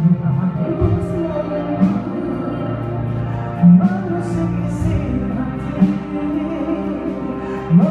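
Orchestral music in an instrumental passage: sustained chords with a moving melody, and a few short, soft percussive hits.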